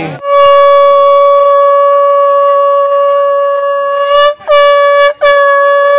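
Conch shell (shankh) blown as a ritual call: one long steady note of about four seconds, then two shorter blasts.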